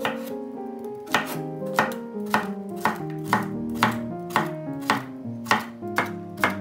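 Chef's knife slicing cucumbers into rounds, the blade knocking on a bamboo cutting board with each cut, about two cuts a second. Background music plays underneath.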